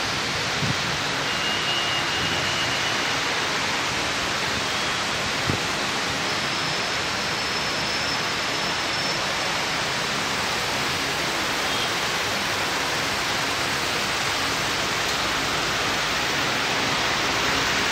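Steady, even rushing noise with no clear rhythm or pitch, with a few faint thin high whistles now and then.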